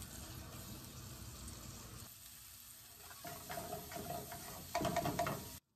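Sliced onions sweating over low heat in olive oil in a deep pan, with a gentle sizzle. From about three seconds in, a spatula stirs and scrapes them around the pan, loudest near the end, and the sound then stops abruptly.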